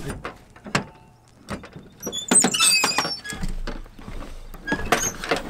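Footsteps and knocks on wooden steps at a trailer doorway, with a brief high squeak about two seconds in, like a door or its hinge being worked.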